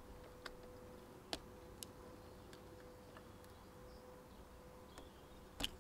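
Faint, scattered ticks and clicks of a cake slice and fingernails picking at the edge of a sticker on a car's rear window glass, the sharpest click near the end, over a faint steady hum.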